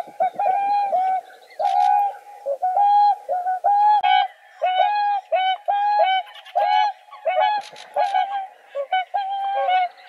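Swans calling: a long series of short, evenly pitched calls at about two a second, growing denser, with several birds overlapping, in the second half.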